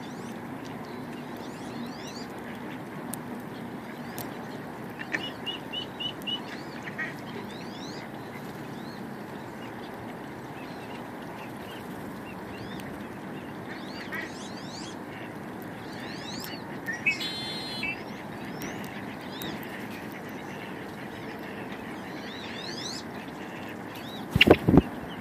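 Marsh ambience: scattered short chirps and whistles of small birds, with a duck quacking about two-thirds of the way through. A few loud, sharp knocks come near the end.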